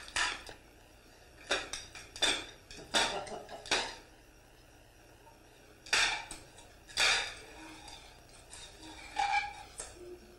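Small toys clattering and knocking on a hard floor as a toddler handles them: about eight separate clacks at uneven intervals, some with a short ring.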